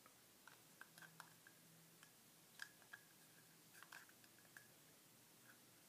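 Faint, scattered clicks and taps of fingers fumbling at the small plastic battery case of a set of copper-wire LED fairy lights, trying to get it open.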